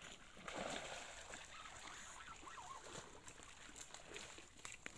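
A hooked snakehead splashing in shallow water as it is pulled to the bank, loudest about half a second in and quieter after. Two sharp clicks near the end.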